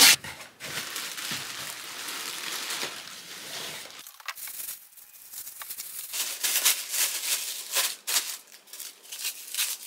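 A cardboard box slit open with a box cutter, a sharp click and then a steady scraping hiss, followed from about halfway on by clear plastic wrapping crinkling and rustling in many short crackles as a handbag is pulled out and unwrapped.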